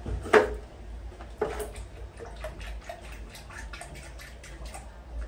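Water splashing and sloshing in a plastic bathtub as a baby monkey moves about in it. There is a loud splash about half a second in and another about a second later, then small splashes and drips.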